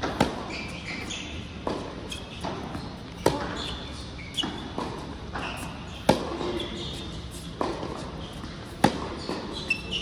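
Tennis rally on an indoor hard court: sharp racket strikes on the ball and ball bounces, roughly every one to one and a half seconds, echoing in the large hall.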